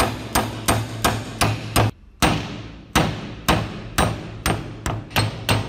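A hammer striking a steel pin punch to drive a rusted pin out of an antique mechanical scale part. A quick series of sharp metal-on-metal blows, about three a second, with a short pause about two seconds in.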